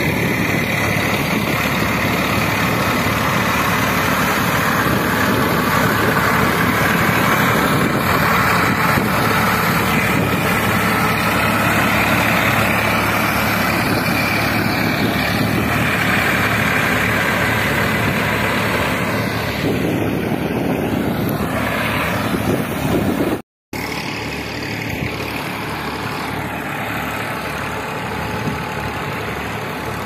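Massey Ferguson 241 tractor's three-cylinder diesel engine running steadily under load, pulling a rotavator through wet mud. The sound cuts out for an instant about three-quarters of the way through.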